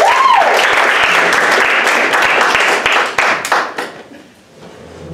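Audience applauding, many hands clapping at once, dying away about three and a half to four seconds in.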